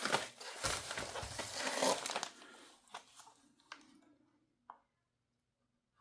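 Plastic parts packaging crinkling and rustling as it is handled and opened, giving way about halfway through to a few light clicks.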